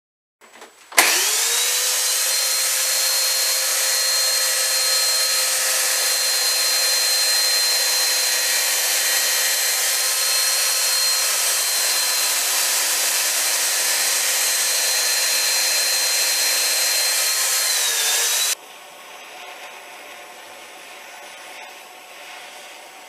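Electric chainsaw starting about a second in, its motor quickly spinning up to a steady high whine as it cuts into wood, holding full speed with an even pitch; near the end the pitch dips briefly and the sound cuts off suddenly.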